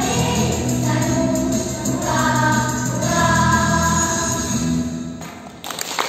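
Children's choir singing the final phrase of a song, ending on a long held note that dies away about five seconds in. Applause breaks out just before the end.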